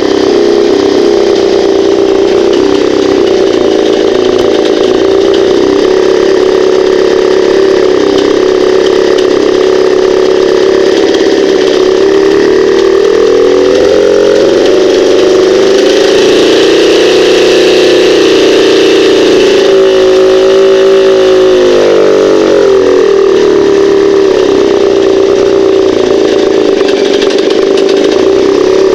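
Moskva-M two-stroke outboard motor running steadily, its speed wandering up and down a little around the middle. It has a knocking and ringing that the owner traces to the flywheel rubbing on the ignition coils' magnetic cores.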